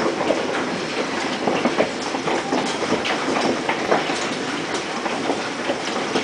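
Hail pelting the house: a dense, continuous clatter of many irregular hard impacts over a steady hiss of falling hail.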